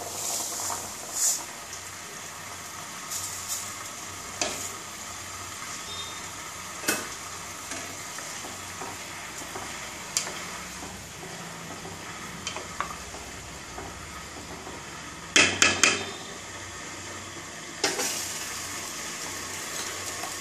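Dry rice pattering out of a steel strainer into a pot of boiling stock, then a wooden spatula stirring and knocking against the pot over the steady bubbling hiss of the boil. The loudest moment is a quick run of sharp knocks about three-quarters of the way through.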